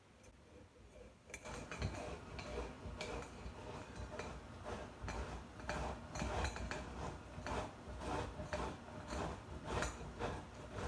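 Boiled, peeled beets being grated on a hand grater: a run of repeated rasping strokes that begins about a second and a half in.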